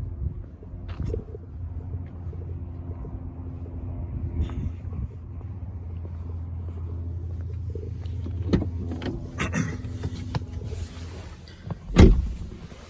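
Car engine idling steadily, with scattered knocks and clicks in the second half and one loud thump near the end.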